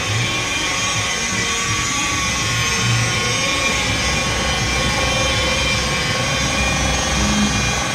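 DeWalt electric rotary polisher running with a wool pad, buffing a plastic headlight lens: a steady motor whine that holds one speed throughout.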